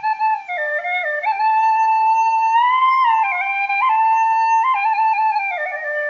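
Background music: a solo flute playing a slow melody that steps and slides between notes.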